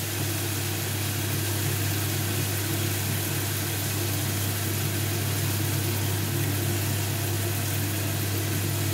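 Steady kitchen noise at the stove: an even hiss of masala frying in a kadai over a gas burner, with a steady low hum under it.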